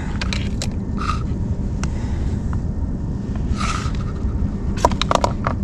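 Battery-powered heater just started up, running with a steady low rumble. Light clicks and nylon rustling from the heater's controller being handled and set down on the tent floor, loudest near the end.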